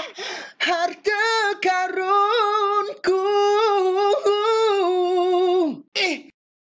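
A voice singing a melodic line in several phrases of held notes at a fairly steady pitch, breaking off just before the end.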